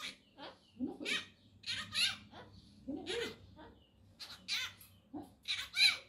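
Green pet parakeet giving a string of about ten short, raspy cough-like calls, a parrot imitating its owner's coughing.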